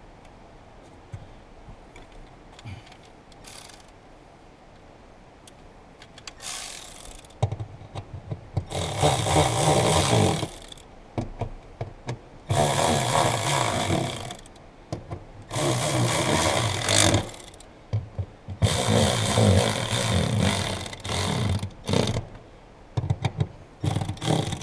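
Handheld power tool running in four bursts of about two to three seconds each, then a few short bursts near the end, driving down the four bolts that hold the fuel pump access cover.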